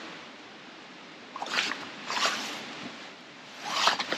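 Three short rustling swishes from clothing and hand movement, over a low steady hiss.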